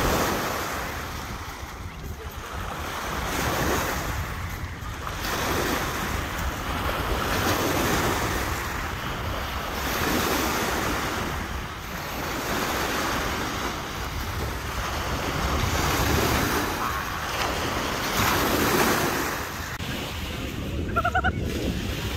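Small lake waves breaking and washing up a pebble beach, the surf swelling and falling back every few seconds, with wind rumbling on the microphone.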